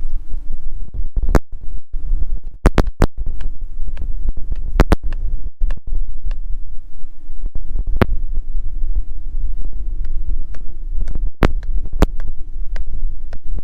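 A truck being driven, with a loud steady low rumble and many irregular sharp knocks and clicks.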